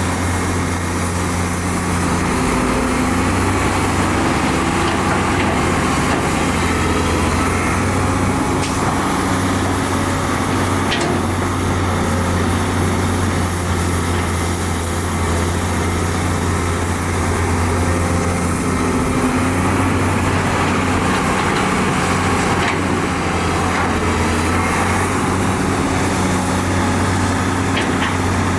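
Heavy earthmoving machinery's diesel engine running steadily under work, a constant low hum with no change in pace.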